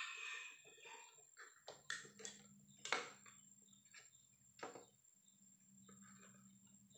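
Faint handling clicks and taps as a steel saw blade is fitted into a plastic handgrip: a few sharp clicks, the loudest about three seconds in, with lighter ticks between.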